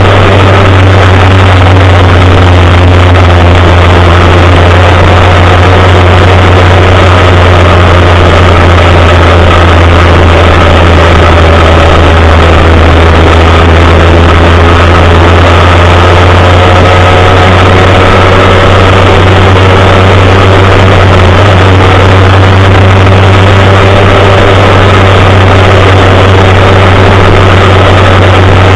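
Trail motorcycle engines running as the bikes ride along in a group, loud and steady, the engine note drifting gently up and down.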